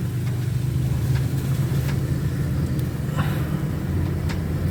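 Vehicle engine running steadily as a low hum, heard from inside the cabin, with a few light clicks.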